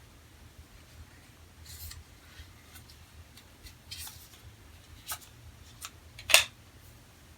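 Hands unpacking the Apple Watch's charging cable from its packaging: scattered light rustles and clicks, with one sharper click about six seconds in.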